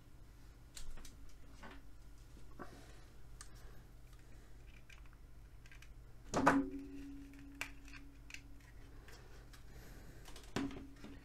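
Plastic speaker housing being handled while a glued-in battery pack is worked loose: scattered small clicks and taps, with one louder knock about six and a half seconds in that leaves a brief ringing tone, and a smaller knock near the end.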